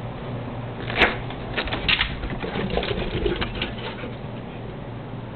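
A sharp knock about a second in and another just before two seconds, then a run of light clicks and rustling, as a door is opened and dogs head out onto a wooden deck.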